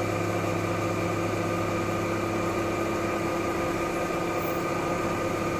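An engine idling steadily at a constant speed, with a hum and no change in pitch.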